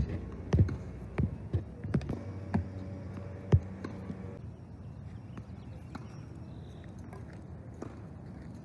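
A string of sharp knocks, about seven spaced unevenly over the first four seconds, with a quieter steady background after that.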